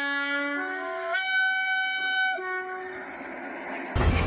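A train horn sounds long, held notes that step in pitch twice and stop about three seconds in. Near the end there is an abrupt cut to loud outdoor street noise with a low rumble.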